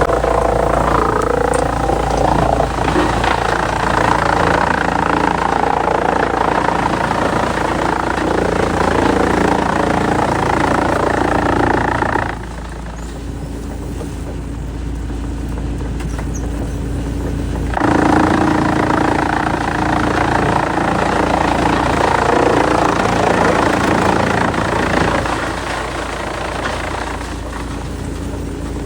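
Heavy wood-processing machinery running loudly under load, over a steady low engine hum. For about five seconds around the middle the louder noise drops away, leaving mostly the engine hum, then comes back.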